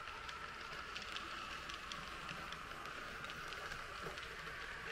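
Model double-deck regional train rolling past on a Märklin layout: a steady whirr of motor and wheels on the rails, with many light clicks.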